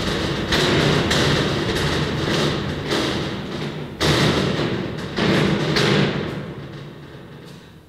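Soundtrack sound design: a series of heavy booming hits, about seven, each ringing out in a long echoing tail over a low hum. The hits stop after about six seconds and the sound dies away near the end.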